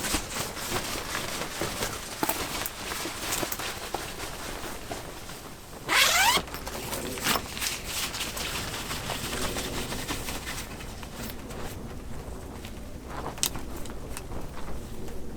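A zipper pulled open in one quick stroke about six seconds in, amid scattered small clicks and rustling from gear being handled.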